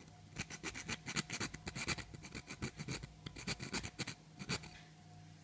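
A hand file rasping in quick short strokes across a hardened steel padlock shackle, as a scratch test of its hardness. The strokes stop shortly before the end.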